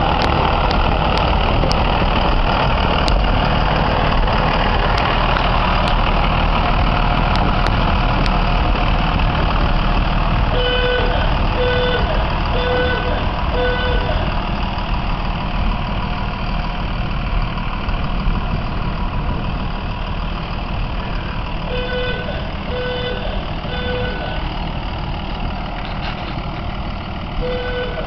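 Brill railcar running as it backs along the track, a steady engine rumble that is loudest at first and eases off. About ten seconds in, about twenty-two seconds in and again near the end, a run of four short beeps sounds, about a second apart.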